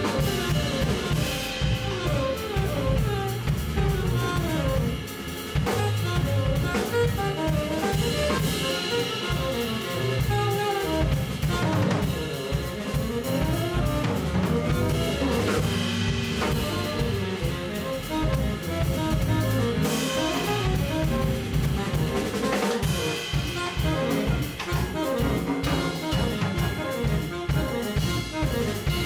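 Live jazz quartet of saxophone, electric guitar, upright bass and drum kit playing, with busy drumming throughout under moving melodic lines.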